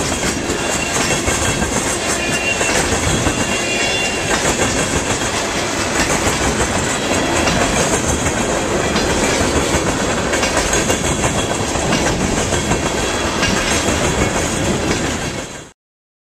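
A freight train of tank cars rolling past, its steel wheels clattering steadily over the rail joints. The sound cuts off suddenly near the end.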